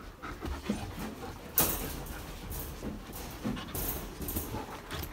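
Dogs moving about close to the phone, making soft dog noises, with rustling of fur and clothing; two louder rustles come about a second and a half and nearly four seconds in.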